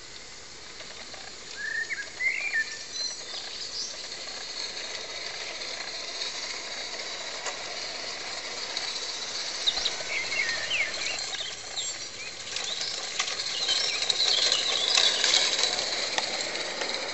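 Birds chirping in a garden, with short calls about two seconds in and again around ten seconds in. A small live-steam garden-scale (gauge IIm) locomotive runs along the track, with high clicking and hiss growing louder toward the end as it passes close.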